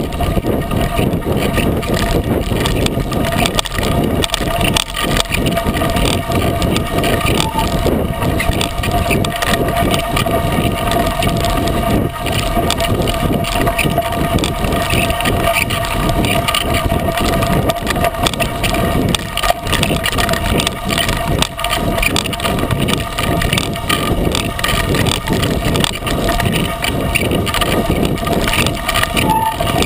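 A 36-inch Coker unicycle tyre rolling down a gravel dirt trail, picked up by a GoPro mounted close to the wheel: loud, constant crunching and rattling.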